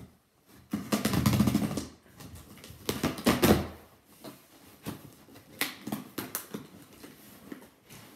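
Cardboard shipping box being opened: two loud tearing, scraping sounds as the tape is slit and ripped, then several short knocks and rustles as the flaps are pulled open and the box is handled.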